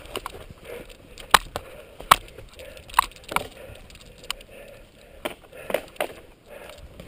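Cyclocross bike jolting over a rough dirt trail: tires rolling on dirt and leaves with irregular sharp rattles and knocks from the bike as it hits bumps, about eight in a few seconds.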